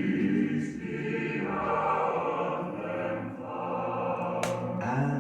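Choral music: voices holding long sung notes that change every second or so. A single sharp click sounds near the end.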